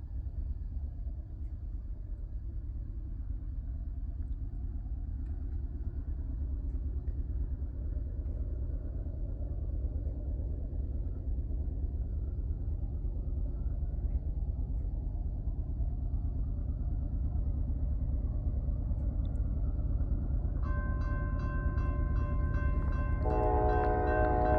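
An approaching Norfolk Southern diesel freight locomotive, its low rumble growing steadily louder. About 20 seconds in, its multi-chime air horn starts sounding a chord, which swells louder near the end.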